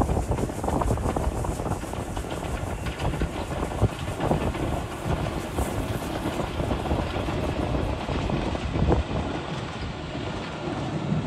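Colas Rail Plasser & Theurer 08-4x4/4S-RT tamping machine rumbling as it moves slowly along the track, with irregular louder surges.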